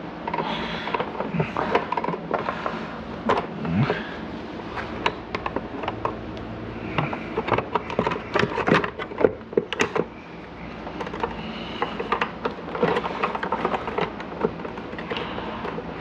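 Plastic housing parts of a Viking 720 canister vacuum being fitted together by hand: irregular clicks, knocks and rattles as the pieces snap into place.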